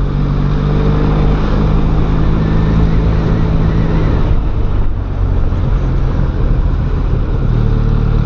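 Benelli Leoncino 500's parallel-twin engine running steadily under way. Its pitch drops and the level dips about four to five seconds in, then the revs rise again near the end.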